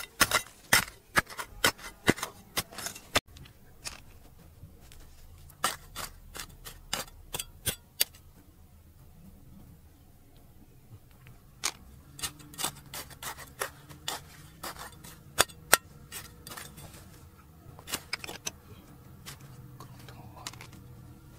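Irregular sharp metallic clicks and knocks of a digging tool striking and scraping hard stone, in quick runs of strokes with short pauses between.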